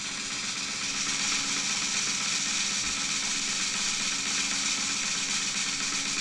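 Steady snare drumroll sound effect that starts suddenly as a phone roulette wheel begins spinning, building suspense for a random draw.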